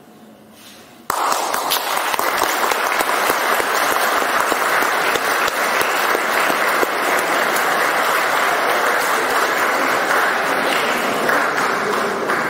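Audience applauding, breaking out suddenly about a second in, holding steady, and starting to die down near the end.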